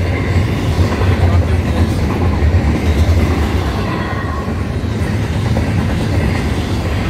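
Union Pacific double-stack intermodal train's container well cars passing at speed: a loud, steady rumble of steel wheels rolling on the rails.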